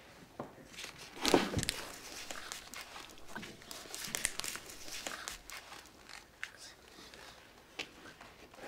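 Rustling and shuffling with scattered small knocks and clicks, and one louder thump about a second in.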